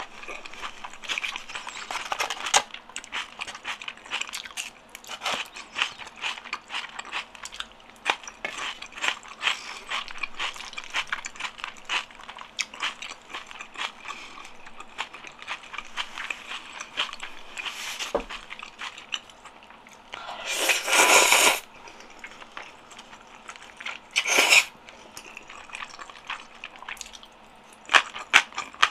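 A person chewing saucy black-bean noodles and rice close to the microphone: a steady run of small, irregular wet mouth clicks. About two-thirds of the way through there is one louder rush of noise lasting about a second, and a shorter one a few seconds later.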